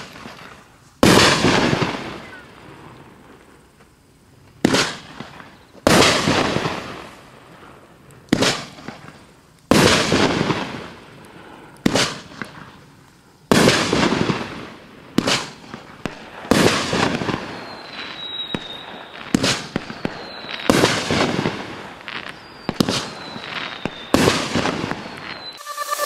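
Happy Family 'In Sight' multi-shot firework cake firing: about fifteen sharp aerial bursts, one every second or two, each fading out over a second or so. In the second half, short falling whistles sound between some of the shots.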